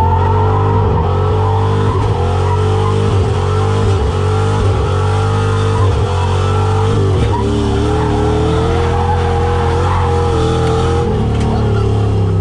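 Ford Mustang SN95 drift car's engine running hard at high revs, heard from inside the cabin, its pitch dipping briefly several times as the throttle is worked during a drift run.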